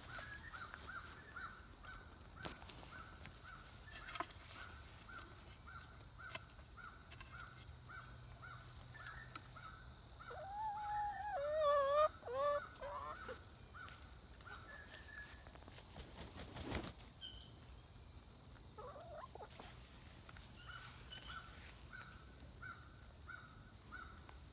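Domestic hens calling as they forage: a steady run of short, evenly spaced high notes, broken about halfway through by a louder drawn-out squawk that bends in pitch, with another short call a little later.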